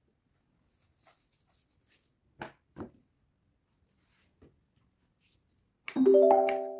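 Two light knocks as a plastic cutting board is set down on the table, then near the end a short piano-like chime, several notes struck together that start suddenly and fade.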